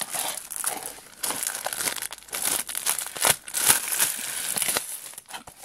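Thin clear plastic shrink-wrap on a Blu-ray case crinkling and tearing as it is pulled off by hand, in a dense run of irregular crackles.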